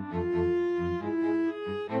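Background music with long held notes that change about every half second.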